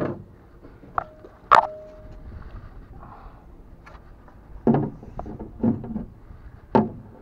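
A series of knocks: a sharp click, then a louder sharp knock with a brief ringing tone after it, followed by three duller thumps about a second apart.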